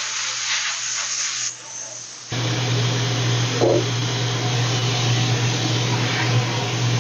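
Vertical milling machine running, a steady hissing rush over a low hum; the sound changes abruptly to a louder, fuller noise a little over two seconds in.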